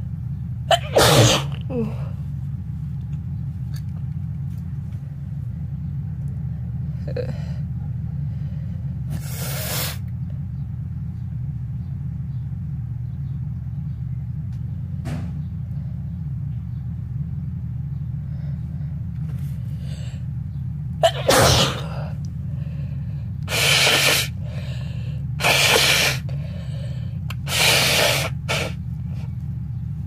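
A person sneezing hard, about a second in and again about 21 seconds in, the sneezing set off by dust. Near the end come three short blows a couple of seconds apart, nose blows, over a steady low hum.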